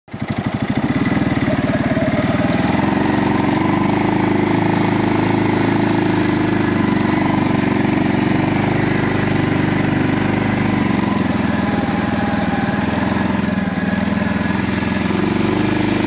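Segway Snarler 570 ATV's single-cylinder engine running steadily while the quad rides along a gravel forest track, its pitch shifting only a little.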